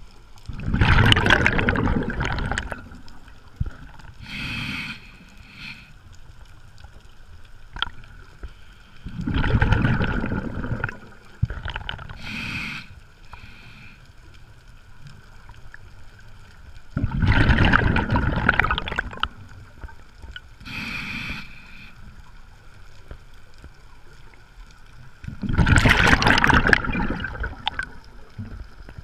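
Scuba diver breathing through a regulator underwater, with a regular cycle: four loud gurgling bursts of exhaled bubbles about every eight seconds, each followed a few seconds later by a shorter, quieter hissing inhale through the regulator.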